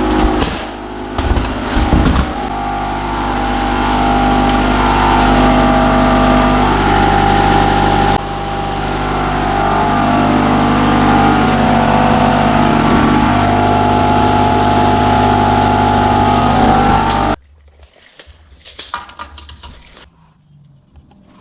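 A motor-driven machine runs steadily for about fifteen seconds, with a brief dip about eight seconds in, then cuts off suddenly.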